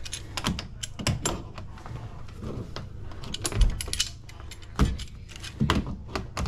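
Metal adjustable pliers clicking and clinking against the refrigerant fittings and copper tubing of an air handler's evaporator coil as they are set on and grip a fitting. Irregular sharp clicks, with a few duller knocks, over a steady low hum.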